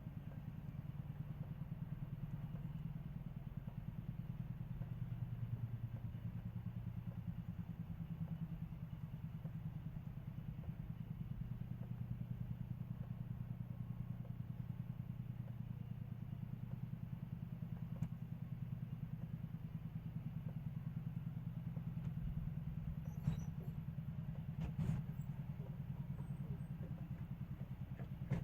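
Steady low mechanical hum with a fast, even pulse, like a running motor, with two light knocks near the end.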